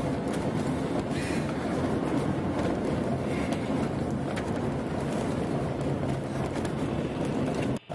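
Steady road and engine noise inside the cab of a moving truck. It drops out for an instant near the end.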